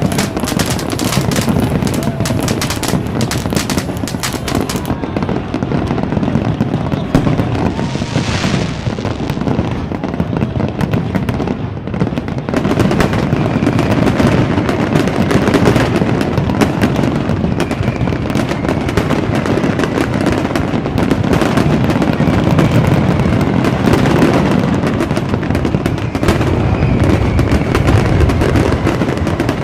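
Fireworks going off in a dense, continuous crackle of bursts and firecrackers, with faint whistles gliding in pitch here and there.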